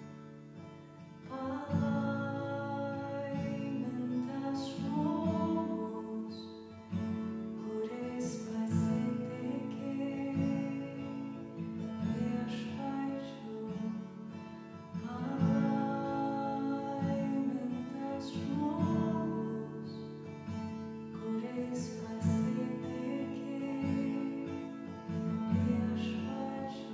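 Background music led by acoustic guitar, with slow, sustained chords.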